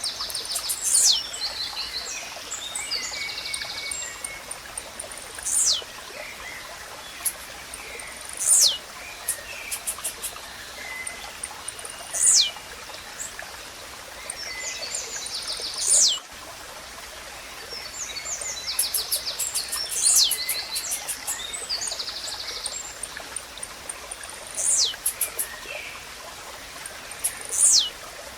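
Blue-black grassquit (tiziu) repeating its short, sharp song, a quick high note sweeping steeply down, about every four seconds. Other small birds chirp and trill in between, over a steady hiss of running water.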